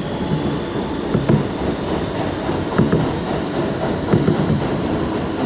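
New York City Subway R train running: a steady rumble of wheels on the rails, with a few sharp clacks from the rail joints.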